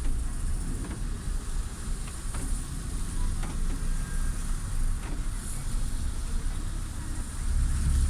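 Steady low rumble of a car heard from inside the cabin, engine and tyres, while crawling in a traffic jam, with a few faint ticks.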